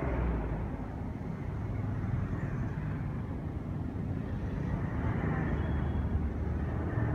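Street traffic: motor vehicles running and passing, a steady low rumble that swells a couple of times.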